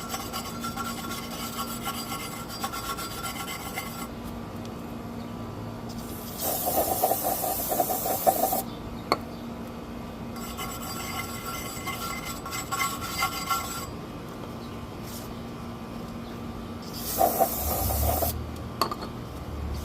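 A brush scrubbing rust and grime off a car's wheel hub face in stretches of quick scraping strokes, with two louder, harsher bouts, over a faint steady hum.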